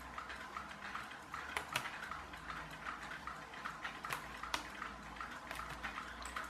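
Plastic gear train of a VEX Robotics Gear Racer rubber-band car clicking faintly and evenly, about four clicks a second, as it is wound up by hand.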